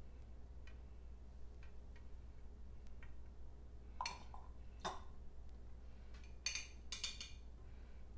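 Glass hydrometer test jar being handled: a few faint clicks, then short, brighter clinks and rattles about four to seven seconds in, as a pyment sample is squirted in from a baster and the jar is set down on the counter.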